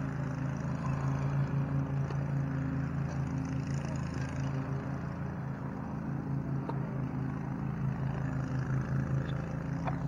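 A steady low mechanical drone, even in pitch, with a couple of faint ticks.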